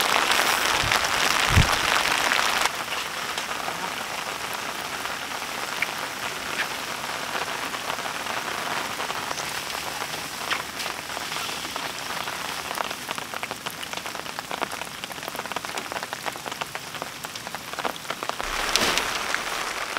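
Steady rain falling, many separate drops ticking through a continuous hiss. Louder for the first few seconds, then dropping suddenly about three seconds in.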